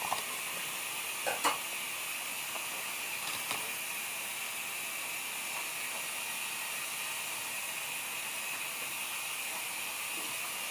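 Steady hiss with a few faint, short clicks in the first four seconds.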